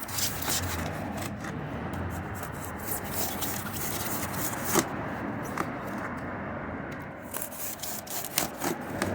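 Steady rubbing and scraping against a material, with scattered sharp clicks and knocks.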